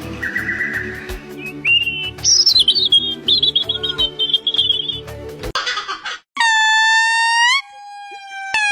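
Bird whistling and chirping in warbling phrases over steady background music. After a short gap it gives a long, clean, steady whistled note, then a lower held note.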